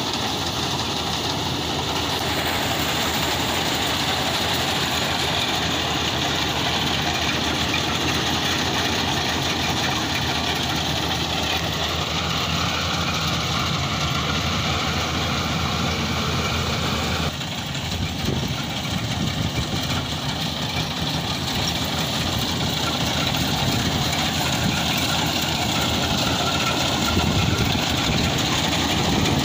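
Rice combine harvester running steadily, a continuous engine and machinery noise. Its sound changes abruptly about 17 seconds in.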